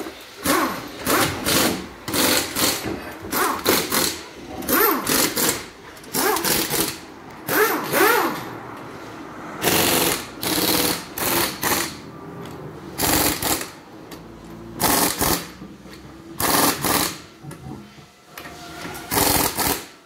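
Pneumatic impact wrench driving a car wheel's lug nuts, fired in many short bursts one after another with a few longer pauses.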